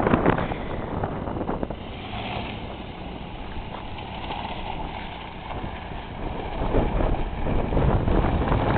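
Lincoln Navigator SUV's V8 engine and tyres as it spins donuts on loose dirt, with wind buffeting the microphone. Loudest at the start as it passes close, fading through the middle as it circles away, and rising again near the end.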